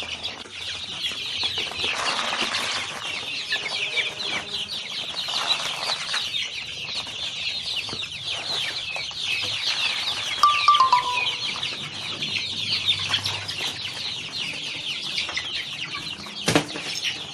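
A flock of young chickens, about 45 days old, peeping over and over while they feed, many short falling chirps overlapping with no break. A sharp knock comes near the end.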